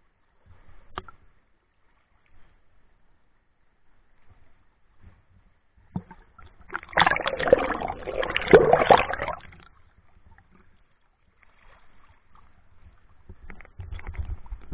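River water splashing and churning around a person wading in, loudest for about three seconds in the middle, when the microphone dips underwater among bubbles. A weaker stretch of water movement comes near the end.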